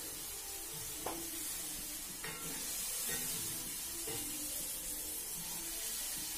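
Food sizzling in oil in a pan on the stove, with a few sharp clinks of a utensil stirring in the pan.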